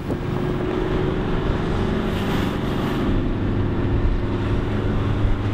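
Minibus engine running steadily with road noise, heard from inside the cabin while driving: a constant low hum.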